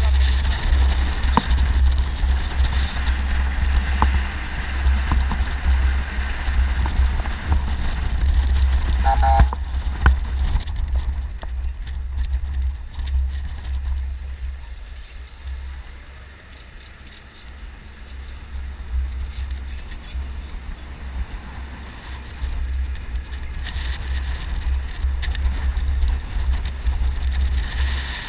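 Ride noise on the roof of a moving Humvee: a low, pulsing rumble from the vehicle and wind buffeting the helmet-camera microphone. It eases for several seconds in the middle and builds again near the end.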